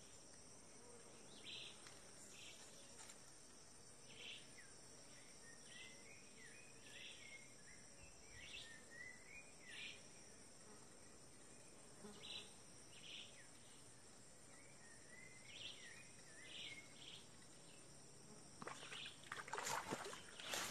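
Faint steady high-pitched insect drone of a pond edge, with short chirping calls every second or so. In the last couple of seconds the water starts to splash and churn, growing louder.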